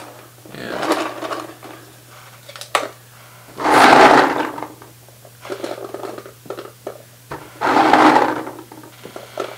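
Paintballs poured into a ViewLoader Evlution 4 egg-style hopper in three rushes, each a rattle of balls tumbling into the plastic shell, the loudest about four seconds in, with a few single knocks between. The hopper's floor is lined with a soft pad that muffles the balls a little.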